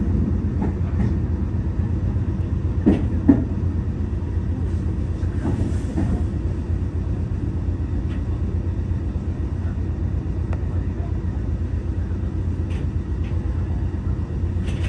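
Meitetsu electric train rolling slowly along the track, heard from inside the front of the car as a steady low rumble. Two sharp clacks come about three seconds in, and a few fainter clicks follow.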